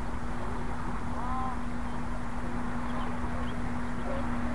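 Steady outdoor background noise with a constant low hum, and a faint short arched call about a second in.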